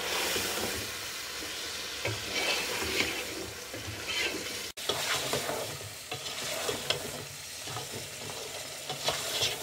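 Beef chunks sizzling as they brown in oil and butter in a nonstick pot, stirred and turned with a wooden spatula.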